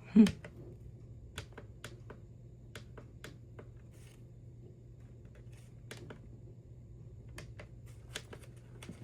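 Buttons on a Maxx Digital weather radio clicking as they are pressed, about a dozen scattered presses, over a low steady hum. A short thump just after the start is the loudest sound.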